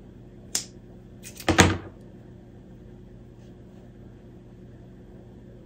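A single scissor snip through yarn, then about a second later a louder knock and clatter as the scissors are set down on the cutting mat, with a couple of faint taps afterwards. A faint steady hum underneath.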